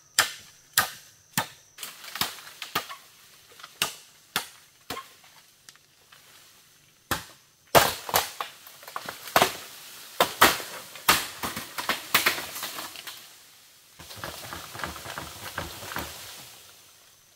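Repeated sharp chopping strikes, a blade hitting wood, at first a little under two a second. Near the middle they come faster and harder. Toward the end there is a few seconds of softer crunching and clattering.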